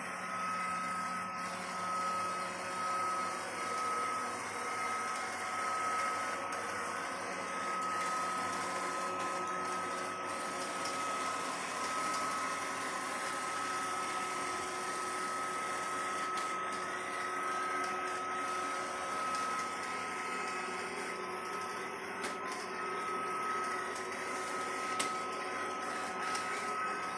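Robot vacuum cleaner running steadily, a motor hum with a constant high-pitched whine.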